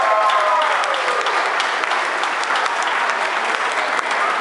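Crowd applauding, a dense patter of many hands clapping, with a few voices calling out during the first second.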